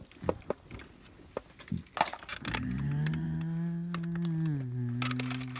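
A few light clicks and knocks, then a low, drawn-out voice-like tone held for about three seconds that steps down in pitch near the end, like a long moo.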